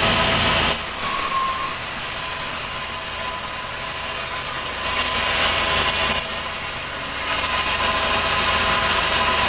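Sawmill machinery running steadily without cutting, a constant mechanical hum with a few held tones; its loudness drops about a second in and swells back up twice later on.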